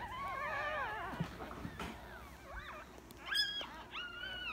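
Newborn Yorkshire terrier puppies whimpering: a string of high, wavering cries in the first second, then a few short squeals in the last second and a half.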